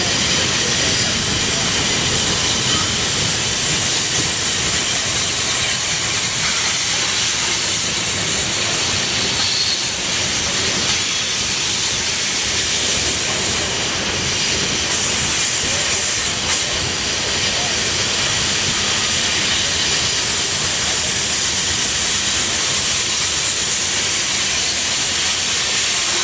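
Loaded coal cars of a long freight train rolling past, a steady loud hiss of steel wheels on rail with no clear clickety-clack beat.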